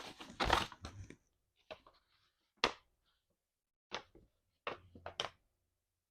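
Packaging being handled during an unboxing: crinkling and rustling in short bursts, loudest in the first second, then a few brief ones at intervals.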